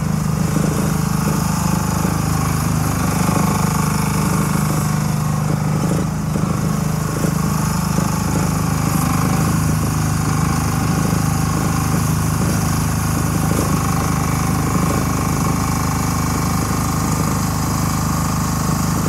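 Small engine of a JPC PC10 micro excavator running steadily as the machine travels on its rubber tracks over gravel, with a fast, irregular clatter over the engine note.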